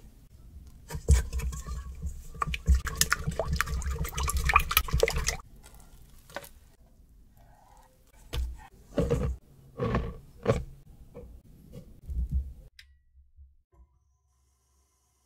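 Egg, milk and yeast being beaten in a stainless steel mixing bowl for about four seconds, a rapid clinking and sloshing. In the second half, sticky poolish dough is scraped into the beaten egg in several wet plops, and then it goes quiet.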